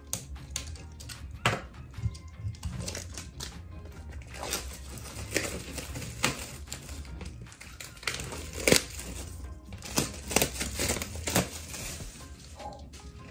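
Clear plastic shrink wrap being torn open and peeled off a music album, crinkling and crackling in short sharp spells throughout, loudest about nine seconds in. Background music plays underneath.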